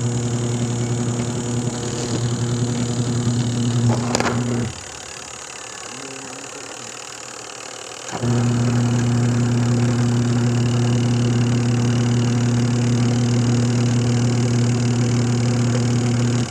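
Washing machine spin-dryer motor humming steadily under power. It cuts out about four and a half seconds in, comes back on about eight seconds in, and stops abruptly near the end. A new capacitor has not cured its weak spin, so the owner blames the motor itself.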